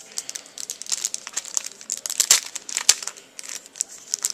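Trading-card packaging being torn open and crinkled by hand: a dense, irregular run of sharp crackles and rustles.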